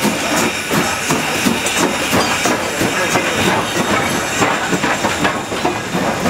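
Steam locomotive No. 90, a 2-10-0, and its tender passing at close range: steam hissing over a steady run of clanks and knocks from the running gear and the wheels on the rails.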